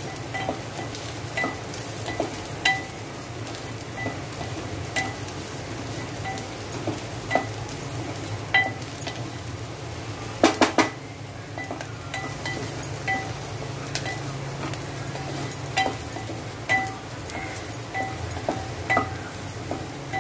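Chopped onion and green chillies sizzling as they sauté in a pot, stirred with a wooden spatula that knocks against the pot's side again and again with a short ring. A quick run of louder knocks comes about halfway through.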